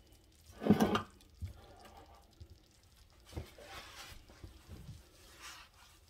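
A heavy enamelled cast-iron pot clunking and scraping on the stovetop about a second in, followed by a few light knocks and soft rustling.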